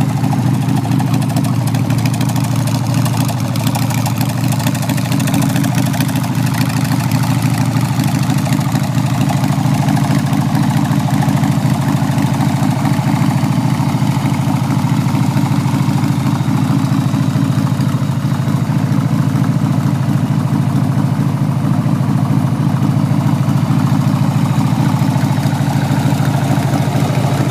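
A 1994 Harley-Davidson Sportster's air-cooled Evolution V-twin idling steadily and running well.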